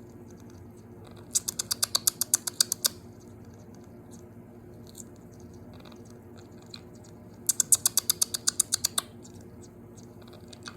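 Quaker parrot crunching broccoli with its beak: two runs of quick, sharp clicks, each about a second and a half long, one a little after the start and one past the middle, over a faint steady hum.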